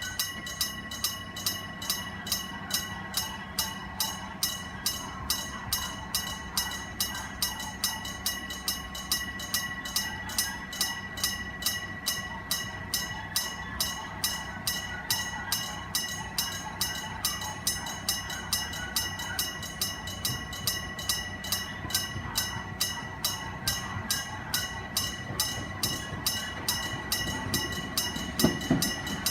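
Electric-bell level-crossing bells ringing continuously, several bells striking out of step with one another at about two to three strikes a second. Near the end a low rumble swells as a train approaches.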